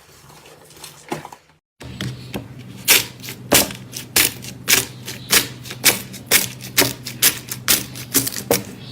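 Slime being squished and poked, giving off sharp clicking pops about twice a second over a steady low hum. The sound drops out briefly near the start, and the pops are louder after it.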